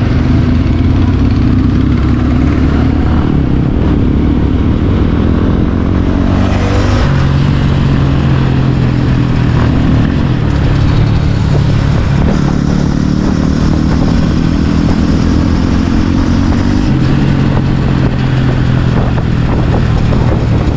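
Bajaj Pulsar 150's single-cylinder engine running at speed, heard from the rider's seat as the bike speeds up from about 25 to nearly 50 km/h. Its note rises and falls a few times as the rider opens and eases the throttle.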